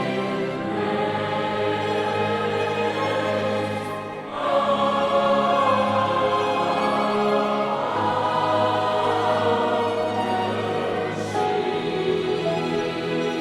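Concert choir singing a classical piece in long, held notes, swelling louder about four seconds in.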